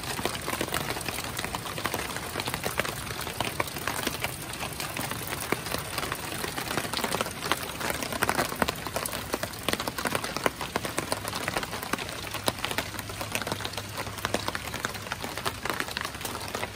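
Steady rain falling, a dense patter of fine drop ticks over an even hiss.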